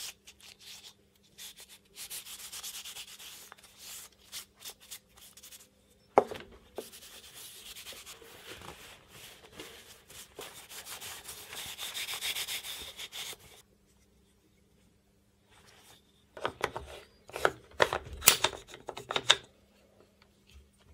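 Cloth rubbing over a small wooden plate, a scratchy continuous wiping, with one sharp knock about six seconds in. After a short pause, near the end comes a quick run of clicks and knocks as the wooden plate is handled on the metal head of a Vinten Pro 10 tripod.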